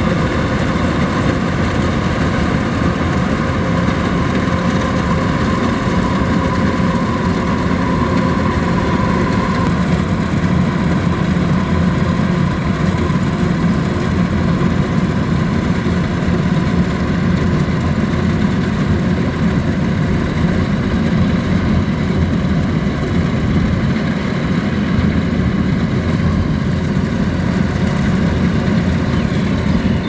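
Kubota DC105X rice combine harvester running steadily while cutting and threshing rice, its diesel engine and machinery making a continuous drone. A higher steady whine stands out over the first third and then fades.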